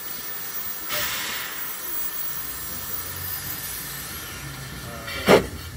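Narrow-gauge steam locomotive hissing steam at rest, with a stronger surge of hiss about a second in. Near the end comes a brief loud pitched call, the loudest sound here.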